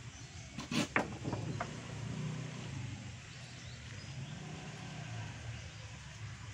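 A steady low hum runs throughout, with a few sharp knocks and short higher sounds about a second in.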